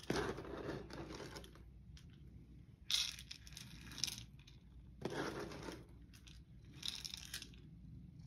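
Dry cat food poured out in several short bursts, the kibble rattling into a bowl as a portion is measured out by weight.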